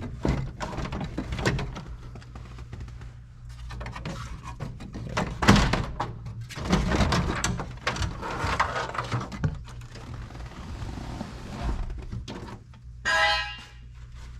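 A cracked plastic dashboard being worked loose and pulled out of a 2007–2014 Chevy Tahoe: irregular knocks, thunks and plastic scraping and rattling, with a short high squeak about 13 seconds in.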